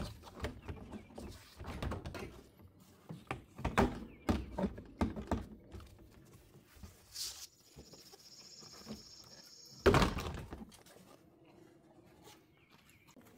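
Snap-in plastic trim cover being pried off its clips: a series of hard plastic snaps, knocks and rattles, then a louder scraping thump about ten seconds in as the panel comes free.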